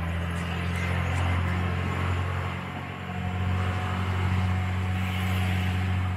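Tour bus engine running while the bus is under way, heard from on board as a steady low drone with road noise. It eases off about halfway through and then builds again.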